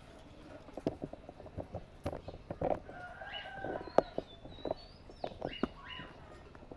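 Pet parrots making short, high chirps and whistles from about three seconds in, over a run of clicks and taps, with one sharp tap about four seconds in.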